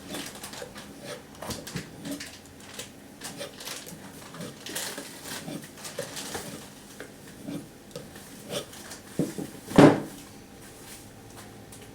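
Knife blade stroked over and over across a strop, light scrapes and taps at an uneven pace, with one louder knock a little before the end.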